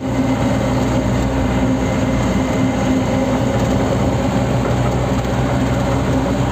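Steady engine drone and tyre-on-road noise of a moving car, heard from inside the cabin.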